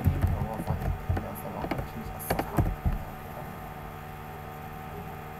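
Steady electrical hum from the recording setup. During the first three seconds there are scattered sharp clicks and low knocks from computer keyboard and mouse use, then only the hum remains.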